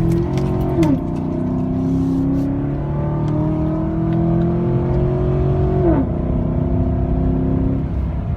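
A 2016 Chevrolet Silverado's 5.3-litre V8 with a K&N cold-air intake at wide-open throttle, heard from inside the cab. The engine and intake note drops sharply at an upshift about a second in, climbs steadily in pitch, then drops again at a second upshift about six seconds in and holds steady.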